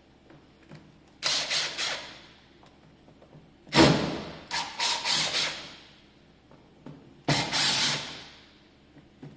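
Cordless power driver run in three short bursts of a second or two each, feathered on and off, backing out the Phillips-head screws that hold a Ford truck's door sill plate.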